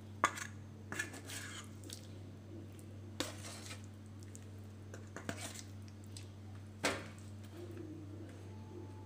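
Metal utensil clinking and scraping against a stainless steel mixing bowl as marinated chicken pieces are lifted out, about five sharp clinks, the loudest just after the start and about seven seconds in. A steady low hum runs underneath.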